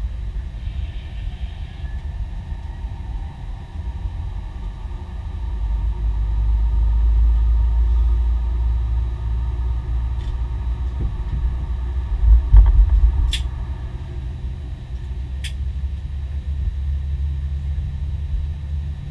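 Steady low rumble of an Airbus A320neo heard in the cockpit, growing louder about six seconds in. There is a heavier bump a little past the middle, followed by two sharp clicks.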